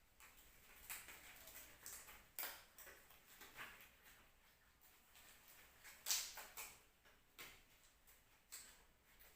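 Faint irregular rustles and light clicks, the loudest about six seconds in.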